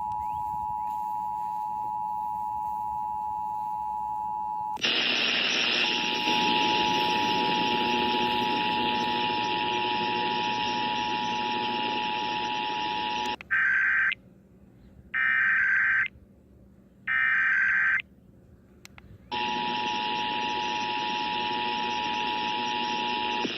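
Emergency Alert System two-tone attention signal, a steady dual tone, with radio static joining it about five seconds in. Three short warbling bursts of SAME digital data follow, each under a second with silence between. The static and the two-tone signal then return.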